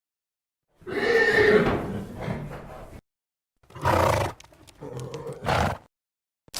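Horse calling: a whinny with a falling pitch about a second in, followed by two shorter, rougher calls.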